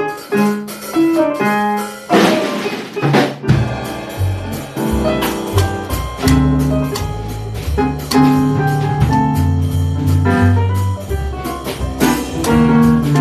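Small jazz combo playing a swing tune. A piano figure opens it, drums come in with a cymbal fill about two seconds in, and the full band with bass joins about three and a half seconds in.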